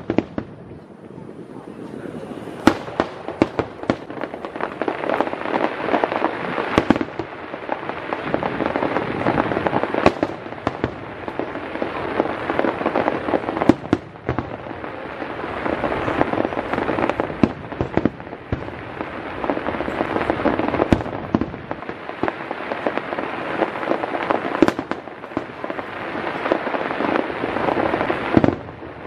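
Aerial fireworks display: shells bursting with many sharp bangs over a near-continuous crackling of burning stars that swells and fades in waves.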